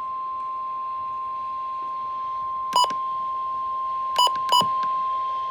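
NOAA Weather Radio warning alarm tone: one steady, unbroken tone just above 1 kHz, sounding ahead of a severe thunderstorm warning. Three short sharp beeps cut in over it, the last two close together.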